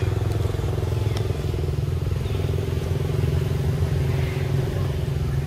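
A small engine running steadily, a low pulsing hum with no change in speed.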